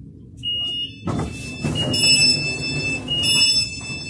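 Train door warning beeps: high electronic tones, a short one followed by two longer ones, as the passenger doors operate at the platform, with a rush of noise from the doors about a second in.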